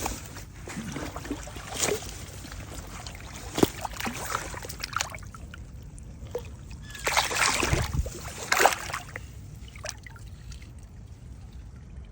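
Water splashing and trickling in irregular bursts, loudest between about seven and nine seconds in.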